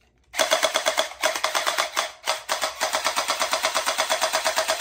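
Electric gel blaster pistol firing on full auto: a rapid, even rattle of shots over a steady motor whine, starting about a third of a second in, with two short breaks, around one second and around two seconds.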